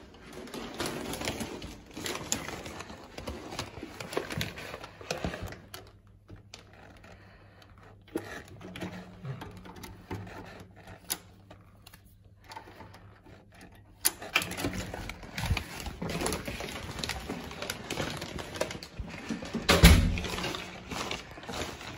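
Footsteps and handheld-camera rustling along a carpeted hotel corridor, then a quieter stretch with a faint low hum while a key card works the room door lock. The steps and rustling pick up again as the door is opened, and a single heavy thud near the end is the loudest sound.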